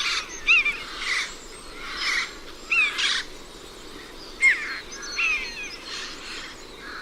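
Birds calling: short chirps and whistles that slide down in pitch, mixed with harsher, raspy calls about once a second.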